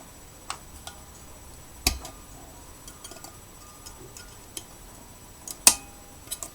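Small pliers clicking and tapping against the metal contacts inside a steam iron while a contact is bent to bridge the thermal fuse. The clicks are scattered and sharp, with two louder ones, about two seconds in and near the end, each leaving a brief metallic ring.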